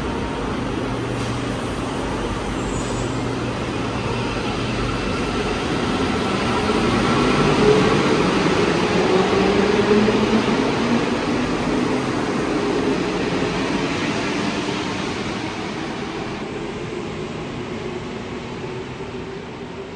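Santiago Metro Line 1 rubber-tyred train moving along the platform. Its running noise and motor tones swell to a peak about halfway through, then fade steadily.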